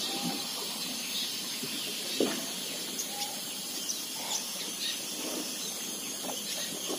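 Quiet open-air river ambience: a steady high hiss with a few faint, short bird chirps scattered through it.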